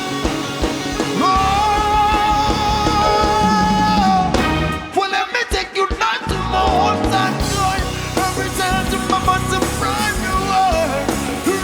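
Live band music: a held melody line over bass and drums. About four seconds in, the bass drops out for a couple of seconds of sharp, clipped hits, then the full groove comes back.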